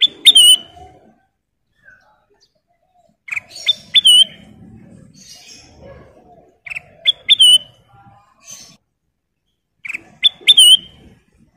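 Kutilang emas bulbul whistling a short, repeated phrase four times, about every three seconds. Each phrase is a few sharp rising notes ending in a brief wavering whistle.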